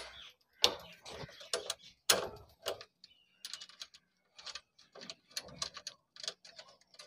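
Irregular light metallic clicks and clinks as a chrome seat grab rail is seated on a motorcycle's seat bracket and a washer and nut are fitted by hand onto its stud.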